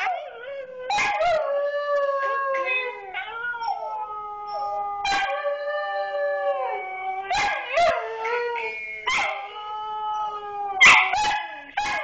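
Siberian husky howling: long, wavering howls that slide up and down in pitch, one after another, with several short sharp clicks between them.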